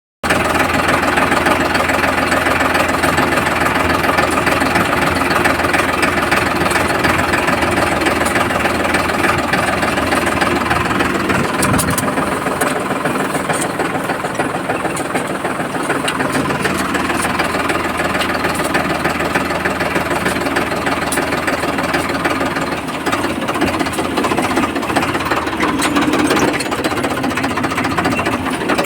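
Farmtrac 60 tractor's diesel engine running steadily, its note shifting about twelve seconds in.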